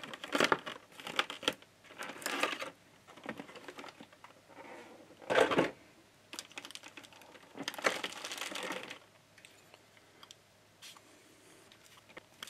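Stiff clear plastic packaging tray crackling and crinkling in irregular bursts as it is handled and pulled apart, the loudest burst about five seconds in; only a few faint clicks near the end.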